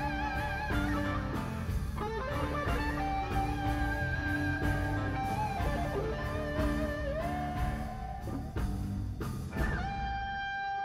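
Amplified electric guitar playing bluesy lead lines with string bends and vibrato over a drum and bass groove. Near the end the groove stops and a single guitar note is held and sustains.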